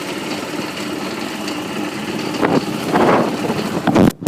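Golf cart's small engine running steadily as the cart drives along, growing louder for about the last second and a half, then cutting out briefly just before the end.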